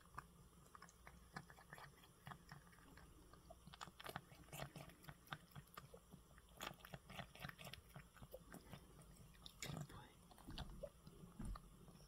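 A cat eating soft flaked wet food from a bowl: faint, irregular chewing and mouth clicks, coming thicker from about four seconds in.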